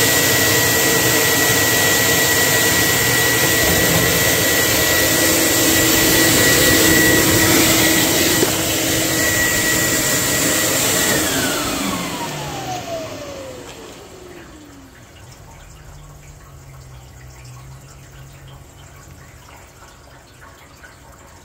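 Weather Mat molded-mat washing machine running, a loud steady whine over a rushing noise. About halfway through it shuts off: the motor's whine falls in pitch as it spins down over a few seconds, leaving only a faint low hum.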